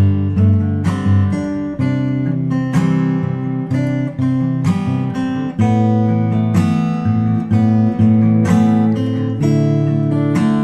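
Background music: strummed acoustic guitar chords at a steady rhythm.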